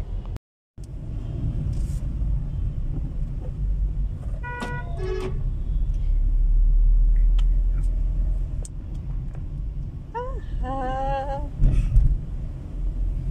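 Steady low rumble of a moving car heard from inside the cabin, engine and road noise, loudest about halfway through. A short pitched sound comes about four and a half seconds in, and a small child's voice sounds briefly about ten seconds in.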